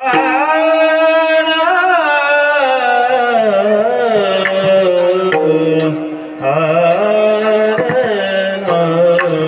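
Male voices singing the closing chal (melody) of a Warkari kirtan devotional song, with long held notes and slow ornamented glides, accompanied by mridang and a few sharp percussive strokes.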